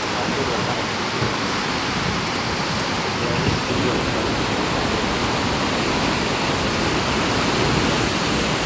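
Steady rushing noise of sea water and wind around a boat under way, even and unbroken.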